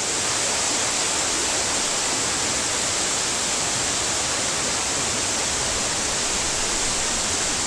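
Mountain waterfall and creek water rushing steadily over rocks, an even, unbroken wash of sound.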